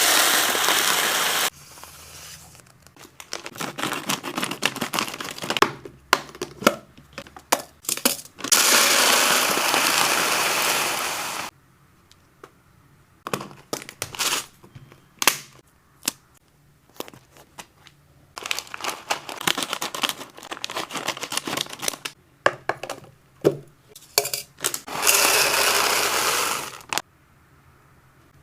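Packaging of hamster snacks being handled: long stretches of rustling and crinkling, three times, with many short clicks and taps in between.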